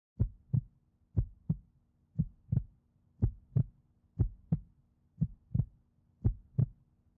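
Heartbeat sound effect: a steady lub-dub of paired low thumps, about one beat a second.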